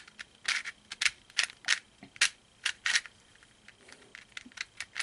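Plastic layers of a LanLan void cube clicking and clacking as the puzzle is twisted by hand, a few irregular sharp clicks a second. A cheap void cube that turns roughly.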